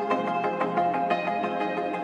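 Ambient background music: sustained tones under a quick, even run of short notes.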